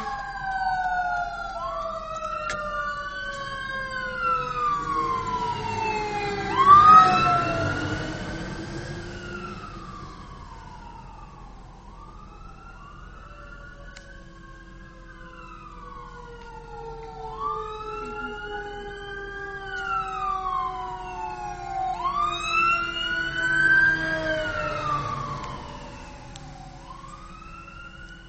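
Fire truck sirens wailing, each sweep rising and then falling in pitch over a few seconds, over a lower tone that slowly falls. A loud blast stands out about seven seconds in.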